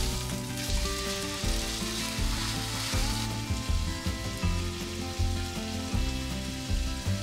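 Beef steaks searing in hot oil in a frying pan, a steady sizzle that stops abruptly a little over three seconds in. Soft background music with held notes plays throughout.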